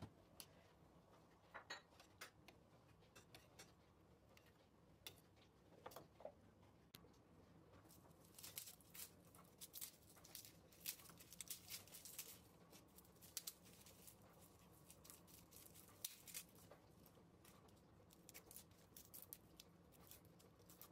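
Faint, irregular clicks and scrapes of ingredients being cut and handled in a kitchen, busier in the second half.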